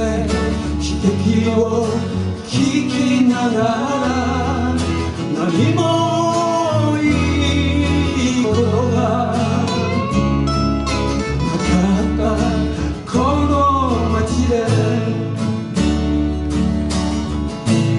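Several acoustic guitars strummed and picked together in a live small-band performance, with a man singing the melody over them.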